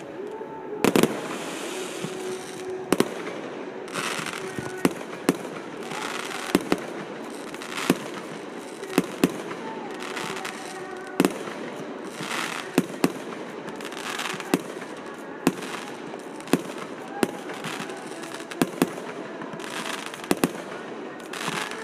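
Aerial fireworks bursting in a display: a run of sharp bangs, roughly one or two a second, over a continuous rushing noise from the launches and bursts.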